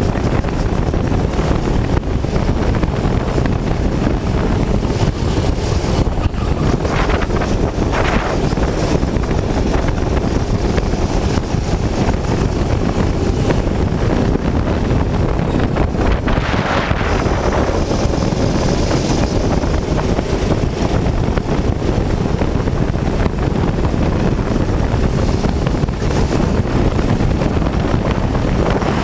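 Go-kart engine running at racing speed, picked up by an onboard camera with heavy wind buffeting on the microphone. The engine note rises briefly about seven seconds in and again about sixteen seconds in.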